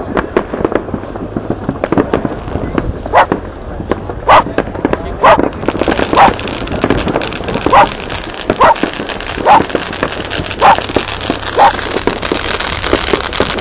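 Fireworks going off: scattered cracks, then a loud sharp pop about once a second over a steady hiss that sets in about halfway.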